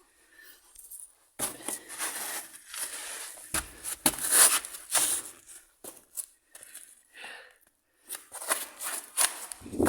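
A person breathing heavily close to the microphone, in irregular, noisy, out-of-breath gasps.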